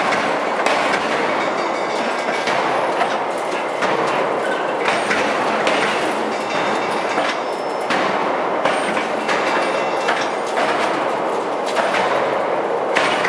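A forging press working a red-hot nickel alloy bar: a loud, continuous clattering machine din with frequent, irregular metallic clanks.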